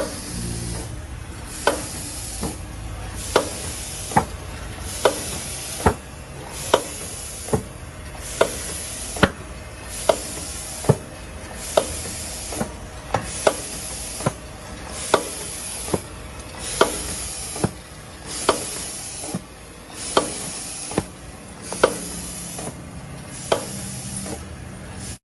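Burger patty forming machine running through its cycle: a sharp click a little more than once a second, each followed by a short high hiss, in an even repeating rhythm.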